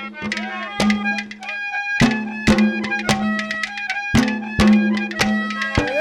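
Haryanvi ragni folk accompaniment playing an instrumental passage: clay-pot (matka) drums struck in a brisk rhythm, about two strokes a second, under a reedy melody line and a steady drone.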